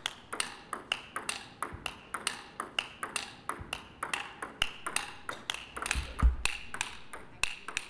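Table tennis ball clicking off the rackets and table in a steady topspin rally of backhand loops, about four clicks a second. A low thump comes about six seconds in.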